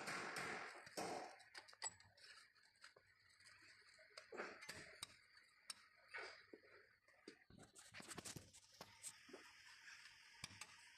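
Faint handling noises from gloved hands working on the brake parts: scattered light clicks and a few brief rubbing swishes.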